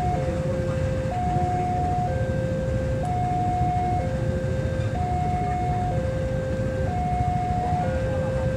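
Level-crossing warning alarm sounding its two-tone electronic signal, a high note and a lower note alternating about once a second, warning of a passing train. Under it, the low rumble of a diesel locomotive crawling along at about 10 km/h with a train of old goods wagons.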